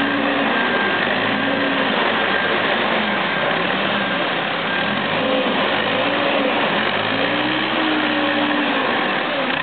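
Telehandler's diesel engine running, its speed rising and falling several times as the boom lifts a hay bale.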